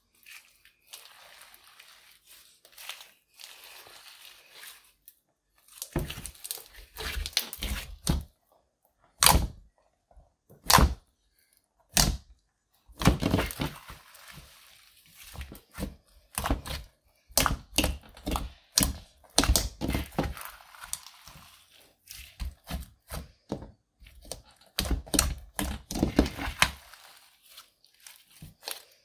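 Dark clear slime thick with mixed-in eyeshadow being stretched, folded and squeezed by hand: a soft crackling at first, then from about six seconds in, many loud, sharp pops and clicks as the slime is pressed and pulled apart.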